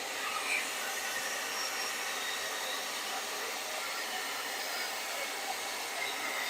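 Hoover CleanSlate XL spot carpet cleaner's suction motor running steadily while its silicone attachment pulls cleaning liquid up off a hard floor.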